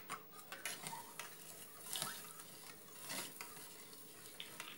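Metal spoon stirring pickling brine in a stainless steel pot: soft swishes of liquid with light clinks and scrapes of the spoon against the pot, a little louder about two and three seconds in.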